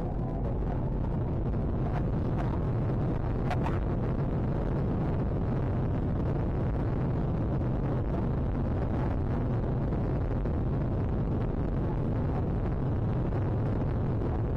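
Jet engines of a Boeing 737 airliner at takeoff thrust, heard from inside the cabin as a steady, deep rushing noise during the takeoff roll.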